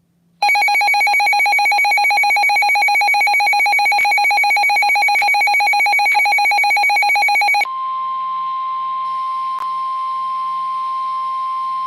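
Emergency Alert System warning tones. About half a second in, a harsh, rapidly pulsing two-tone attention signal starts and sounds for about seven seconds. It then switches to a steady single tone, slightly higher in pitch, which is the National Weather Service warning alarm tone that comes ahead of the spoken warning.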